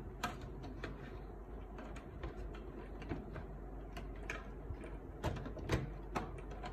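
Scattered clicks and knocks of plastic and metal as a replacement fuser assembly is pushed into a Canon LBP 6000 laser printer's frame and its locks seat, the sharpest two knocks a little after five seconds in.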